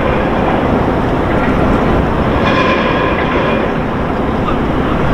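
Portable fire pump's engine running steadily and loudly, with hoses connected.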